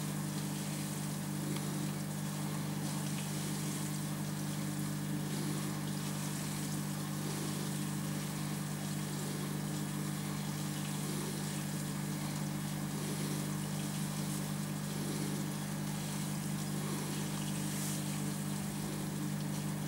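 Aquarium pump humming steadily, with water trickling in the tank.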